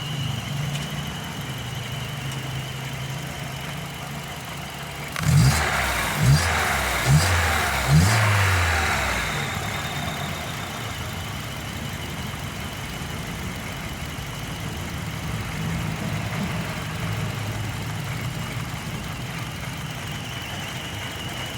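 Hyundai Matrix petrol engine idling. About five seconds in the throttle is blipped four times in quick succession, and the engine then settles back to a steady idle. The engine is running with freshly cleaned and regulated injectors while a cylinder 2 misfire (P0302) is being checked.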